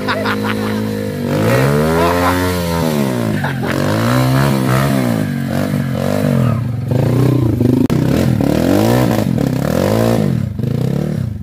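Enduro dirt-bike engine revving up and down again and again, its pitch rising and falling about once a second.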